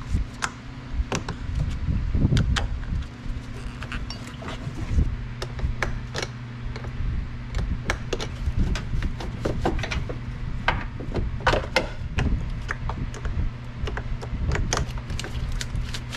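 Irregular metallic clicks and clinks of a hand wrench loosening and lifting off battery cable terminal clamps, over a steady low hum.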